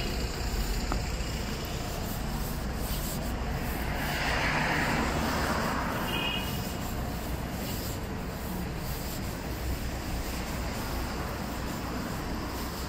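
City street traffic: a steady low rumble of passing vehicles, with one vehicle swelling up into a hiss about four seconds in, and a brief high tone soon after.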